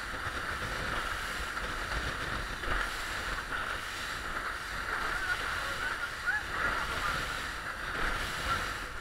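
Small motorboat under way: a steady rush of water along the hull, with wind buffeting the microphone.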